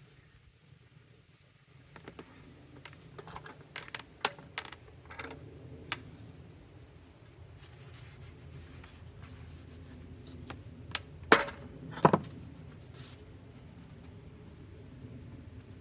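Scattered clicks and knocks of clamps and boards being handled while a glued-up wooden panel is clamped, with two louder knocks close together late on. A faint low steady hum runs under them.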